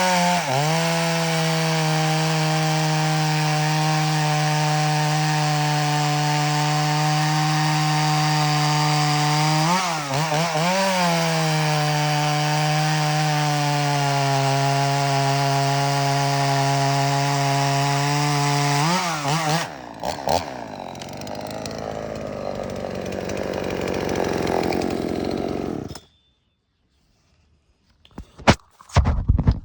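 Oleo-Mac 940 two-stroke chainsaw running at high revs while cutting through wood, steady in pitch, dipping briefly and picking up again about ten seconds in. Just before twenty seconds the engine note drops away into a rougher, quieter noise that stops about twenty-six seconds in. After a short silence a few sharp knocks follow.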